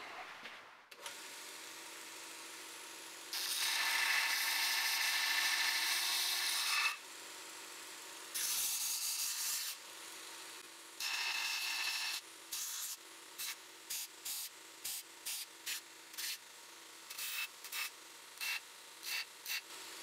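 1x42 belt grinder running, with a steel knife tang pressed against the abrasive belt to clean up its brazed edges: three longer grinding passes, then a quick run of short touches to the belt.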